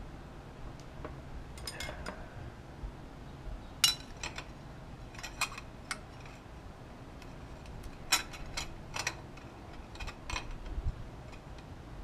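Barnett motorcycle clutch plates clinking against each other and the clutch basket as they are handled and slid into place: a scatter of sharp metallic clicks, loudest about four and eight seconds in.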